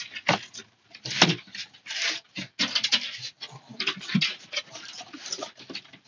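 A dog panting and moving about, in a string of short irregular rustling, breathy bursts.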